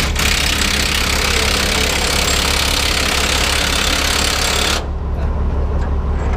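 Heavy truck diesel engine idling steadily under a loud hiss that starts suddenly and cuts off about five seconds in.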